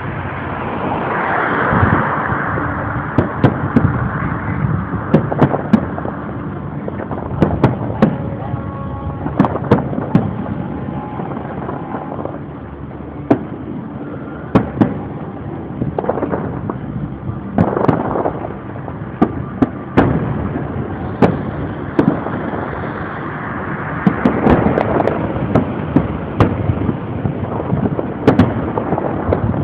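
Fireworks display: shells bursting in sharp bangs, irregularly, sometimes several in quick succession, over a continuous rumbling din.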